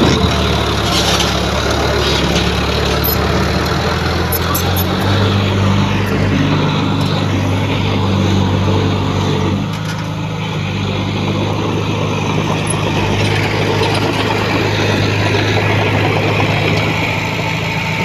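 Heavy diesel engine of a construction machine (truck or bulldozer) running steadily, its engine speed shifting about four seconds in and again near ten seconds.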